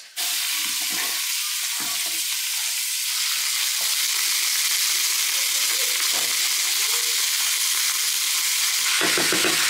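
Chopped onions sizzling in hot oil in a deep pot, a steady frying hiss that starts suddenly just after the opening.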